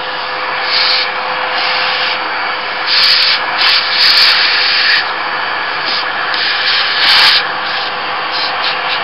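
Vacuum cleaner running steadily, its nozzle passed over an open mortise lock case to suck up grinding dust, with louder spells about three to five seconds in and again near seven seconds.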